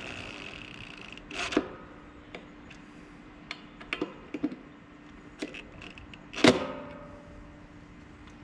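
Cordless drill driving a screw through a metal bracket into a wooden post: the motor's whine fades out within the first second. Scattered clicks and knocks follow from the drill and bracket being handled, the loudest two about a second and a half in and about six and a half seconds in.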